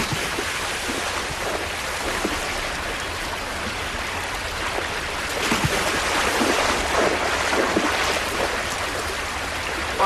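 Steady rush of shallow creek water, with heavier splashing from about five to eight seconds in as grizzly bears wade and lunge through it fishing for salmon.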